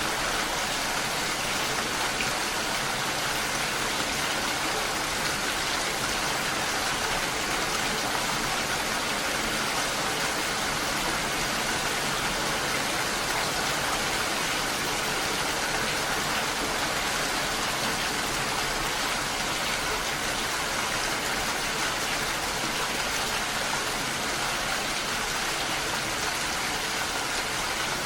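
Steady rain falling, an even unbroken hiss with no single drops or thunder standing out.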